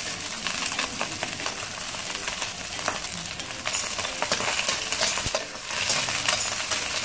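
Kimchi fried rice sizzling in a wok over high heat while a metal spatula stirs and turns it, with frequent scrapes and taps against the pan. There is a brief pause in the scraping about five seconds in.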